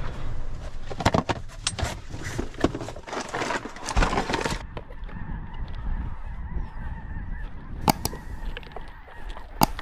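A large flock of snow geese calling together, a dense steady chorus of honks that comes through plainly from about halfway in. It starts under a stretch of loud rustling and knocking near the microphone, with a low rumble throughout and two sharp clicks near the end.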